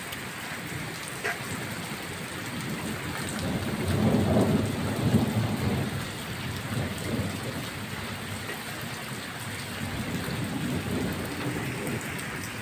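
Steady rain falling on a wet brick-paved courtyard, an even hiss. About four seconds in, a low rumble of thunder swells and fades over a few seconds, the loudest part, with a fainter rumble near the end.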